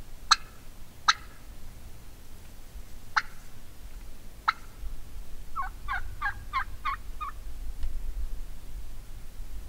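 Wild Merriam's turkey hen calling: four sharp single clucks spaced out, then a run of about seven quick yelps.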